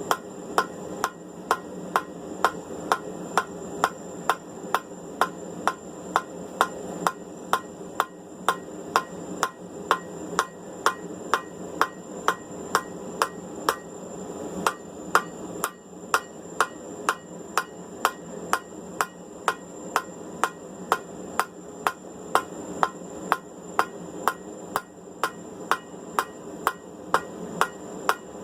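Hand hammer striking hot steel on an anvil in a steady rhythm of about two blows a second, rounding a tong blank by taking it from eight sides to sixteen.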